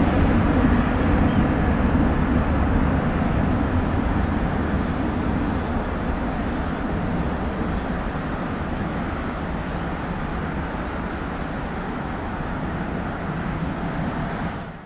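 Boeing 747-400F's four turbofan engines at take-off/climb power, a deep, steady rumble that slowly fades as the freighter climbs away.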